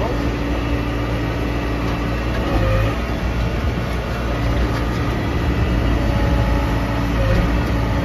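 Case 580L backhoe loader's four-cylinder diesel engine running steadily, heard from inside the cab, while the front loader arms are raised by the hydraulics.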